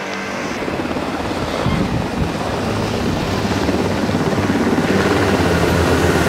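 UH-60 Black Hawk helicopter, its rotor chop and turbine noise growing steadily louder as it hovers low.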